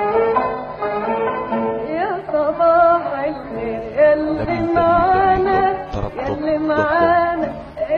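Background music with a singing voice carrying a wavering melody.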